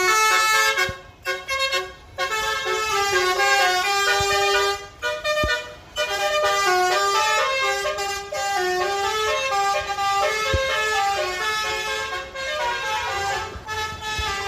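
Bus telolet horn, a multi-tone musical air horn, playing a tune of stepped notes. It breaks off briefly about a second in and again around five seconds in.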